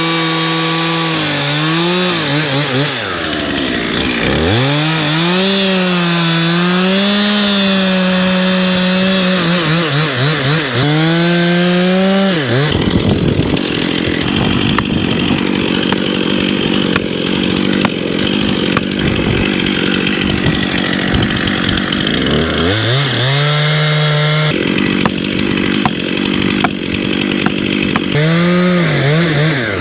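Two-stroke chainsaw revving up and down, dropping briefly to idle, with two longer stretches held at full throttle while cutting into timber, one midway and a shorter one near the end.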